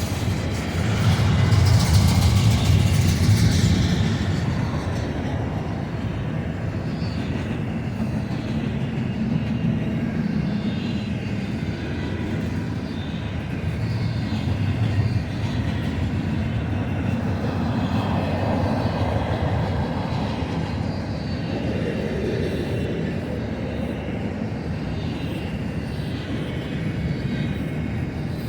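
BNSF intermodal freight train's spine cars rolling past: a steady rumble of steel wheels on the rails, louder for a few seconds near the start.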